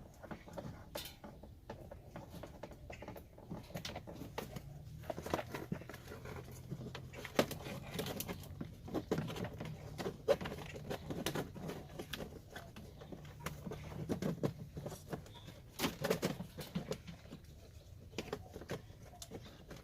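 Irregular clicks, taps and knocks of hands working on a pickup's door panel and its wiring, with a faint low hum through the middle stretch.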